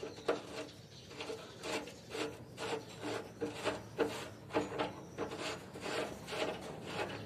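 A hand tool worked back and forth against a metal fitting on a JCB's underside, making repeated rasping, squeaky strokes, about two or three a second.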